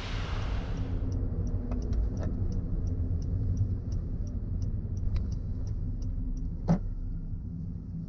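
Car driving, heard from inside the cabin: a steady low rumble of engine and road noise, with a light, regular ticking about three times a second and a single sharp click near the end. A waterfall's rushing hiss fades out in the first second.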